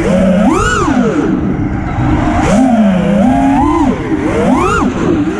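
FPV quadcopter's motors whining, their pitch rising and falling repeatedly as the throttle is punched and eased, with sharp climbs about half a second in and near the end.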